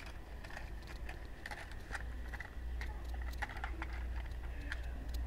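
Irregular light clicks and taps of small plastic toy figures and toy vehicles being handled and set down on grass, over a steady low rumble.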